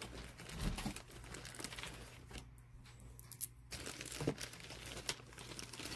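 Crinkling and rustling, with scattered small clicks, as plastic bags and strands of stone and glass beads are handled.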